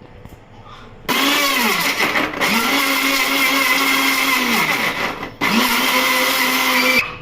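Bajaj mixer grinder motor running on whole tomatoes, coriander and green chillies to make chutney. Its whine sags as the blades bite into the chunks and then steadies; about five seconds in it stops briefly and restarts, a pulse of the switch.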